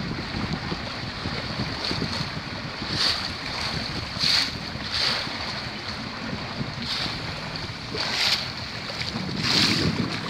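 Wind buffeting the microphone over the steady rush of water along the hull of a Microtoner 19 sailboat under sail, with irregular louder surges every second or two.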